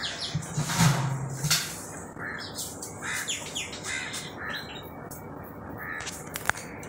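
Birds calling, short calls repeated every half second or so, with a brief low hum about a second in and a sharp click near the end.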